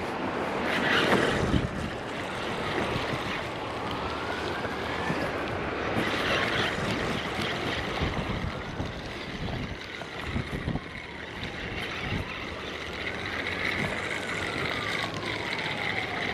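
A siren wailing, its pitch slowly rising and falling about every four seconds, over a steady rushing background noise.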